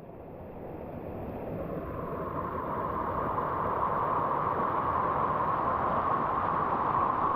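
Steady rushing of a waterfall, growing gradually louder.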